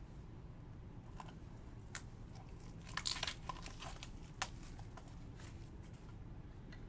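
Trading cards and their plastic wrapping or sleeves being handled: scattered faint crinkles and soft clicks, with a small cluster about three seconds in.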